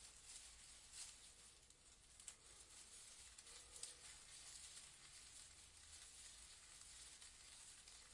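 Near silence: a faint, even hiss with a few soft, scattered ticks.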